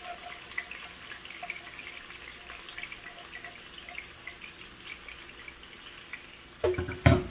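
Hot oil crackling and popping in frying pans on a stove, with fish frying. Near the end, two loud knocks as the emptied saucepan is set down.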